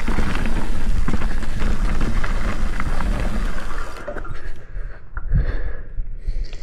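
Mountain bike riding down a dirt trail: wind on the microphone over the clatter of tyres and bike on the ground, with many short knocks. About four seconds in, the noise drops off sharply and only scattered quieter knocks remain.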